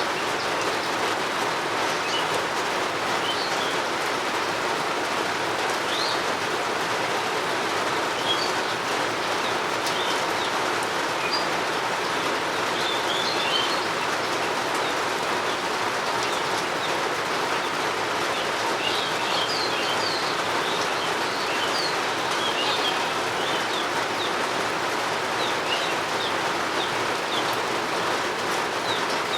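Steady rain falling, with birds chirping in short, high calls scattered throughout, busiest in the second half.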